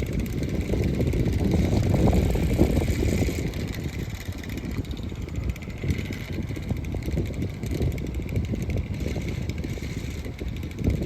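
Gusty wind buffeting the microphone as a low, uneven rumble, strongest over the first three seconds or so and then easing off.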